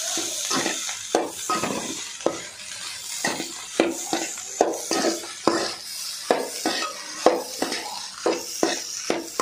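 Metal spatula scraping and knocking against a metal pan as cooked rice is stirred and tossed into chicken fried rice. The strokes come about twice a second over a steady sizzle.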